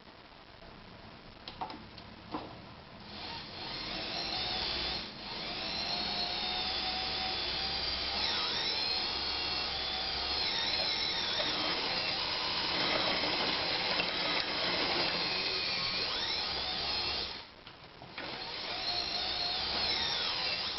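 1968 Anker Phoenix Excelsior ZZ 151 sewing machine's electric motor running fast, winding the bobbin: a steady whine that wavers in pitch as the speed changes. It starts a few seconds in, stops briefly near the end, then starts again. A few light ticks come before it starts.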